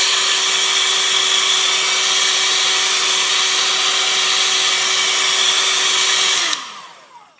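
Handheld hot-air blower running steadily with a constant whine over its rushing air, then switched off about six and a half seconds in, the whine sinking as it winds down. It is heating the front of a phone to soften the top lens so it can be prised off.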